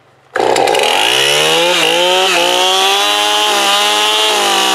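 A two-stroke Stihl Farm Boss chainsaw starts suddenly about a third of a second in and revs up over the first second. It then holds steady at high speed.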